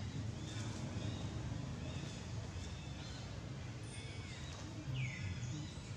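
Several short, high chirping calls, a few gliding down in pitch, over a steady low background rumble.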